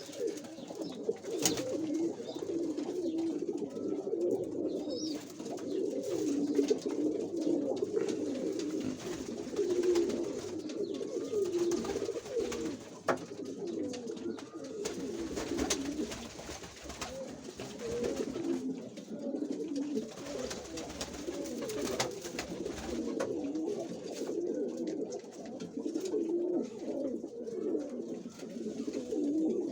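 Many pigeons cooing at once, their low, wavering coos overlapping in a continuous chorus, with a few brief sharp clicks.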